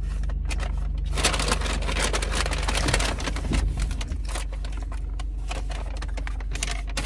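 Paper takeout bag crinkling and rustling as it is handled and a fry container is pulled out, with many quick crackles, over a steady low hum.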